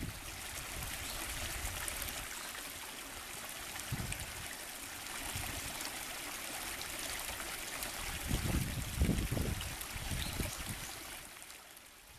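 Shallow brook babbling as it splashes over a low weir of logs and stones, a steady rush of water. A few low rumbles come through about eight to ten seconds in, and the sound fades out near the end.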